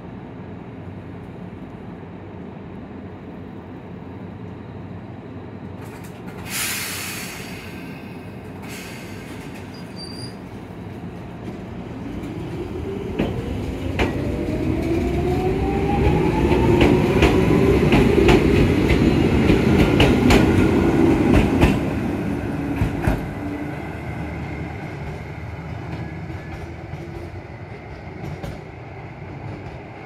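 Toyama Chiho Railway 17480-series electric train pulling away from a station. A low steady hum is broken by two short hisses about six and nine seconds in. Then the motor whine rises in pitch as the train accelerates, and the wheels clack over rail joints, loudest as the cars pass, before the sound fades as the train leaves.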